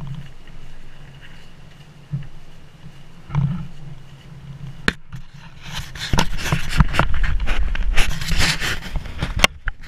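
An upturned canoe carried overhead on a portage, its hull knocking and scraping, over footsteps on a wooden footbridge. A few isolated knocks come first, then a dense run of sharp knocks and scrapes from about six seconds in.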